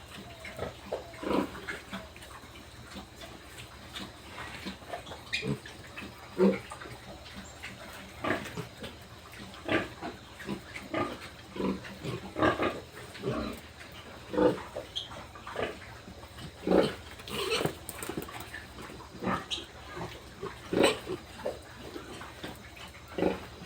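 Pigs grunting, a rapid, irregular string of short calls, some much louder than others.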